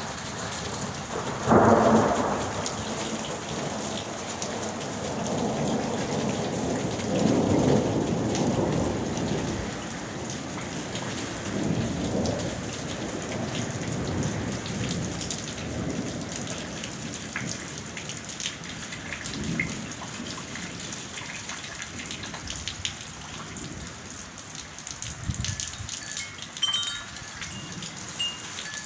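Hail and rain pattering as a dense, steady ticking, with rolls of thunder: a sudden loud clap about a second and a half in, then further rumbles through the middle and near the end.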